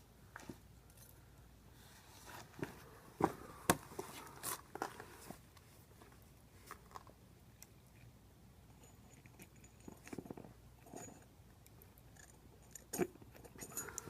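Wood fire crackling and popping in a homemade coffee-can furnace: scattered irregular sharp cracks, a few louder ones about three seconds in and near the end.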